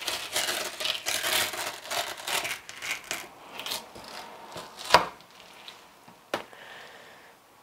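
Fillet knife slicing and scraping through a lingcod's flesh and skin on a cutting board: a quick run of rasping cutting strokes, then a sharp knock about five seconds in and a lighter one a little later.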